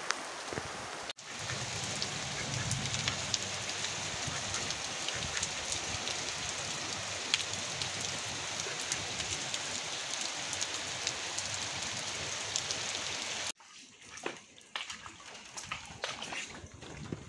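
Steady rain falling on a flooded street: a dense, even hiss of drops with fine ticks of single drops hitting the water. About 13.5 s in it cuts off sharply to much quieter, scattered dripping.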